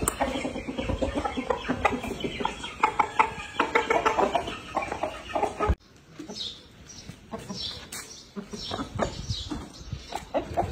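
Large gamefowl roosters clucking in rapid short calls. The sound cuts abruptly about halfway through to a quieter stretch with scattered clucks and short high calls.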